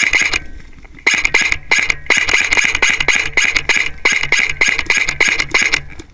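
Airsoft gun firing rapid strings of shots: quick sharp clicks over a steady buzz, broken by short pauses about a second in and two seconds in.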